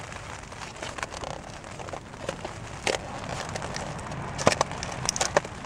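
Fingers prying and tearing open a perforated cardboard calendar door: a few sharp clicks and crackles, most of them in the second half, over a steady faint hiss.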